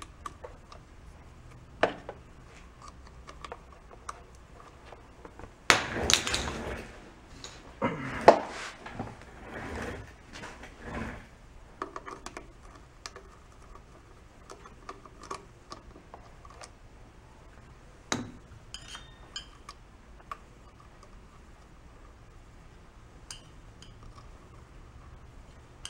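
Small hand tools clicking, scraping and clattering against the plastic base and wiring terminals of a Ninja pressure cooker as a stubborn part is worked loose. The busiest clatter comes about a quarter of the way in, with scattered clicks and a few light metallic clinks later on.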